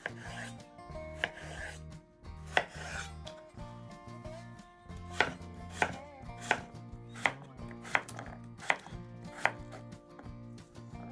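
Kitchen knife cutting vegetables on a cutting board. After some irregular cuts, a regular run of strokes starts about halfway through, at about one and a half a second.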